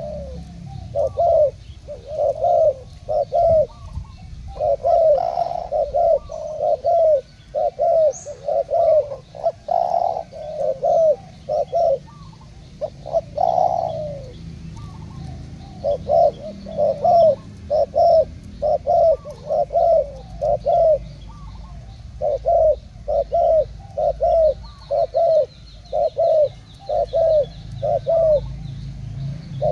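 Spotted doves cooing over and over in quick runs of short, deep, falling coos, the notes at times overlapping as two birds call against each other in a cooing contest.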